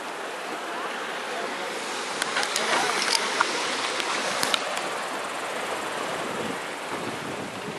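Calm sea washing on the shore: a steady rushing hiss, with a few sharp clicks between about two and four and a half seconds in.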